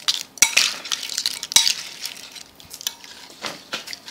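Metal spoon stirring pickled crabs in a bowl, clinking and scraping against the bowl and the crab shells in several sharp knocks, the loudest about half a second and a second and a half in.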